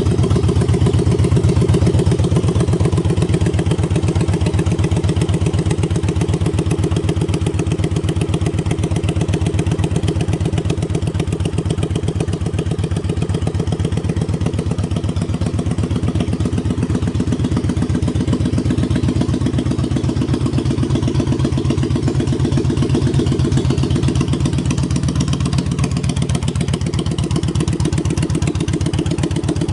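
2012 Victory High Ball's Freedom 106 V-twin engine idling steadily, a dense, even run of exhaust pulses.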